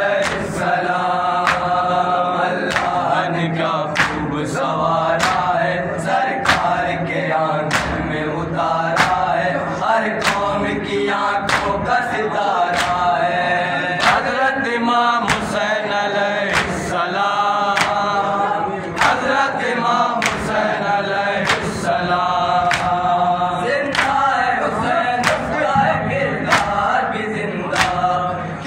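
A noha (Muharram lament) chanted in unison by a group of young men through a microphone, with the mourners' hand strikes on their chests (matam) keeping a steady beat of about one and a half strikes a second.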